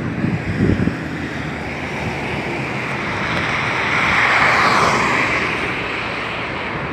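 Sea waves washing on the shore, one wave surging in louder about four seconds in and then receding, with wind buffeting the microphone.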